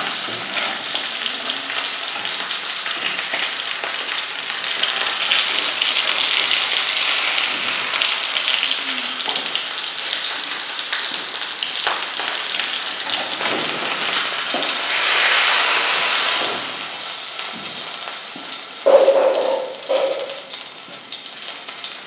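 Fish frying in hot oil in a pan over a gas burner: a steady sizzle. About three seconds before the end, two loud knocks with a brief ring.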